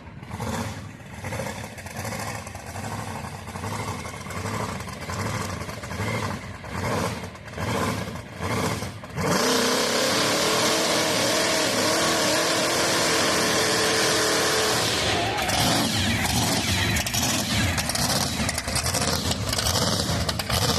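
Supercharged hot-rod engine running rough with uneven blips of throttle. About nine seconds in it is held at high revs for a burnout for about six seconds, with a loud steady scream over the engine, then drops back to an uneven rumble. The run sounds horrible, which the owner puts down to the engine running too much fuel.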